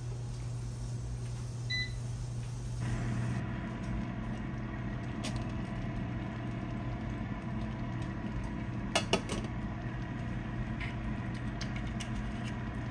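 A kitchen oven's control panel beeps once as it is set, and about a second later the oven starts running with a steady hum and fan noise. A couple of sharp clicks come about nine seconds in.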